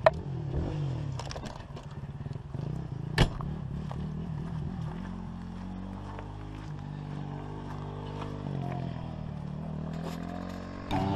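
Motorcycle engine running as the bike approaches, its pitch rising and falling with the throttle. There are two sharp clicks, one at the start and a louder one about three seconds in.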